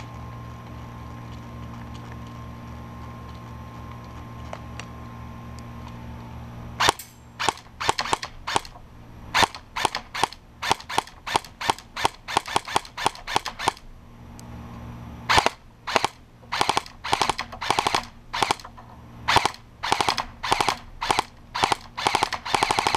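Ares AM013 electric airsoft rifle firing at a BB trap: after about seven seconds of only a steady low background hum, sharp shots in quick strings of about three a second, a short pause, then more shots, crowding into a faster run near the end.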